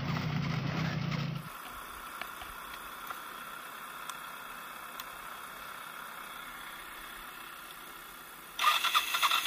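Motorcycle engine idling with a steady low hum, cut off suddenly about a second and a half in by a fainter, steady engine hum. Near the end a louder rhythmic rattle starts, about three beats a second.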